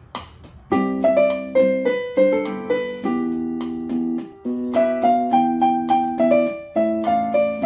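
Yamaha PSR-190 portable keyboard played with both hands in a piano-like voice: held chords in the left hand under a stepping melody in the right. A short drum beat sounds just before the chords come in.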